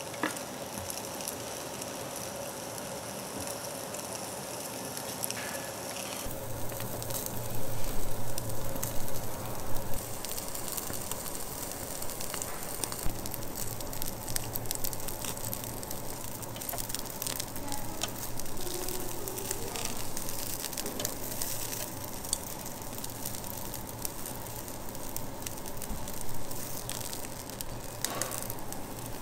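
Thick slab of Jeju black pork sizzling on a hot tabletop grill plate, fat crackling and spitting. The crackle turns louder and denser about six seconds in.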